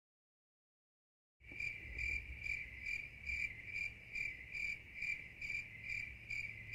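Cricket chirping, a steady high chirp pulsing a little over twice a second, starting abruptly out of dead silence about a second and a half in.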